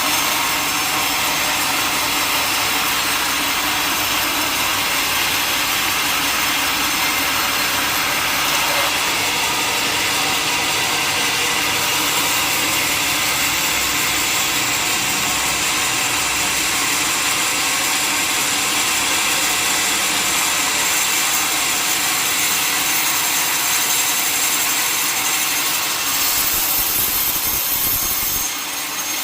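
Sawmill saw cutting steadily through a large mahogany log, a continuous loud hissing rasp of blade in wood. The sound shifts briefly near the end.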